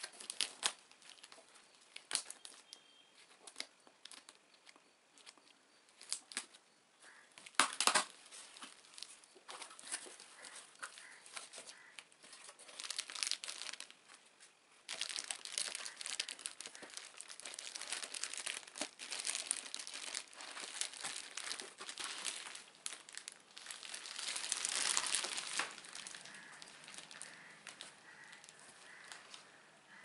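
Unboxing sounds: scissors cutting packing tape and cardboard flaps being handled, with scattered clicks and one sharp knock about eight seconds in. From about halfway, a plastic-wrapped appliance is pulled from the box and its plastic bag crinkles and rustles continuously, most strongly near the end.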